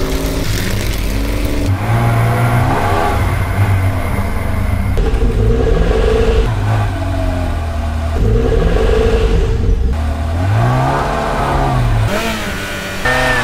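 Car engine revving up and easing off several times, its pitch rising and falling again and again.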